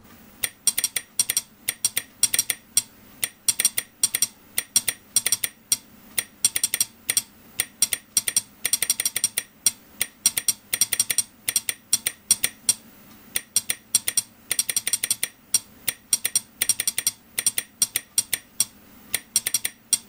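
Vintage telegraph sounder relay's armature clicking out a Morse code message as it is keyed: sharp clicks in uneven groups, with short pauses between letters.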